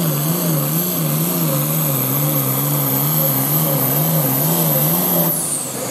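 Turbocharged farm tractor's diesel engine at full throttle pulling a weight-transfer sled, its pitch wavering up and down about twice a second, with a thin high turbo whine above it. Near the end the engine is backed off and the whine winds down.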